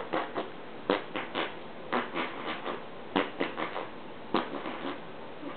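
Quick smacking kisses on a baby's cheek, short lip smacks in little bursts of two to five about once a second.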